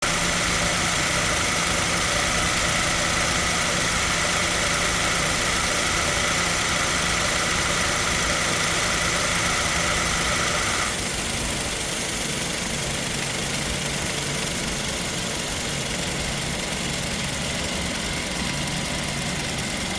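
2007 Toyota Tacoma engine idling steadily under the hood, with the AC compressor running and adding a steady whine and hum. About eleven seconds in, the whine cuts off suddenly as the compressor clutch disengages, and the engine idles on alone.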